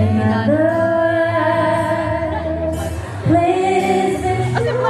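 Music with a woman singing two long held notes, the second starting about three seconds in, over a steady low accompaniment.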